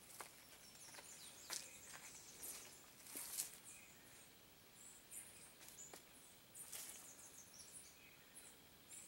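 Quiet outdoor ambience in dense vegetation: scattered short, high chirps of small birds, with a few sharp crackling clicks, the loudest about three seconds in.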